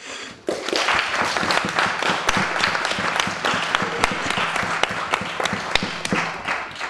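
A small audience clapping by hand, starting about half a second in and dying away near the end.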